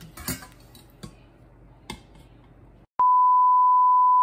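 A few light clicks and clatters from a stainless steel colander being handled, then about three seconds in a loud, steady beep tone cuts in abruptly and holds: an edited-in bleep sound effect.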